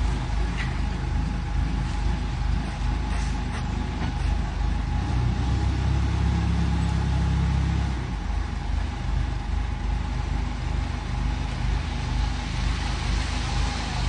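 Engine of a self-loading concrete mixer running steadily, with a thin steady whine above it; the engine note grows louder and heavier from about five to eight seconds in, as under load, then settles back.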